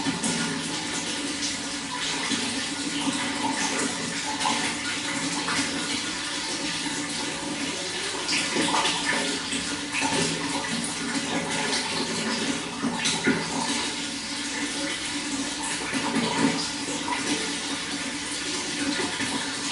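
Water running steadily, a continuous splashing and gurgling flow with small irregular spatters.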